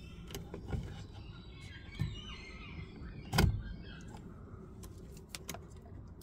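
A run of clicks and knocks from parts of a car door being handled during work on the window regulator, with one heavier thump about three and a half seconds in and a quick cluster of clicks near the end.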